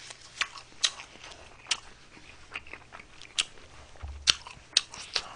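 A person chewing a mouthful of McDonald's burger close to a microphone: irregular wet clicks and crackles from the mouth, with a sharper click about four seconds in.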